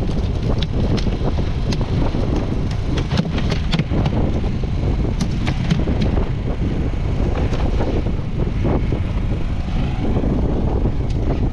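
Steady low rumble of a fishing boat's motor running, with wind buffeting the microphone and scattered sharp taps and knocks.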